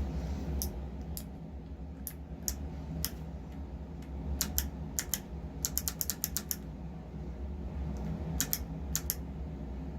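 Cherry MX Box Jade clicky key switch being pressed by the MPCNC machine, giving sharp clicks: scattered single and paired clicks, a quick run of about ten in a row around the middle, and another pair near the end. A steady low hum runs underneath.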